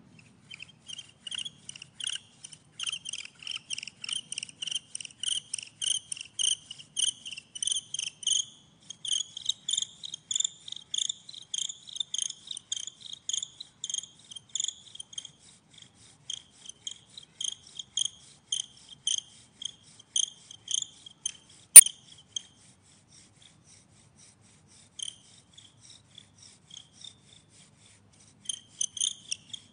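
Bow drill spindle squeaking and rasping in its fireboard hearth with each stroke of the bow, about two strokes a second, with short pauses. A single sharp click about 22 seconds in is the loudest sound.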